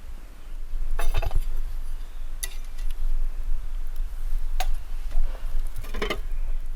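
Light clinks of camp tableware being handled: about four short ringing knocks a second or two apart, over a steady low rumble.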